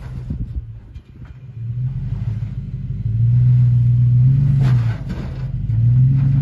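2003 Toyota 4Runner's 4.7-litre V8 revving in surges as the truck strains to climb a rock ledge: it dips about a second in, builds back up, holds higher for about two seconds, drops off about five seconds in, then comes up again near the end.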